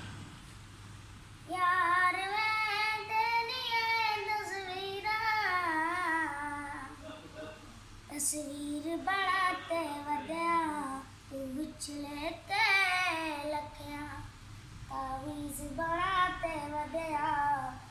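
A young boy singing unaccompanied in a high voice, with long held notes that waver in ornaments, in phrases broken by short pauses.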